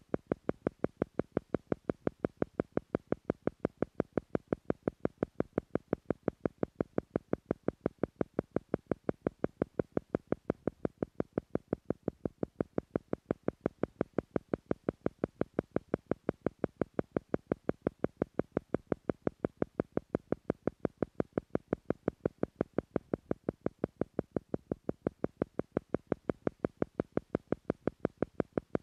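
Steady electronic click pulsing about five times a second, even and unbroken: the theta-frequency beat of a meditation track, meant to slow brainwaves to the theta level.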